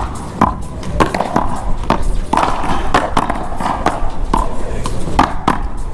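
One-wall paddleball rally: a quick series of sharp hits, roughly two a second, as paddles strike the rubber ball and the ball smacks off the wall.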